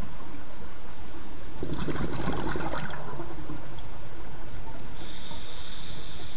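Scuba diver's regulator breathing underwater: a crackling rush of exhaled bubbles about two seconds in, lasting about a second, then the steady hiss of the regulator on the next inhale near the end.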